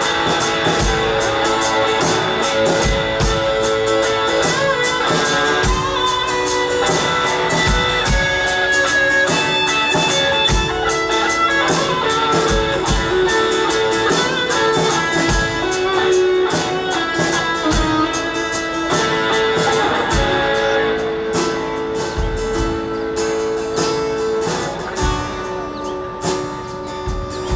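Live country band in an instrumental break: an electric guitar playing a lead line over drums, easing down in loudness near the end.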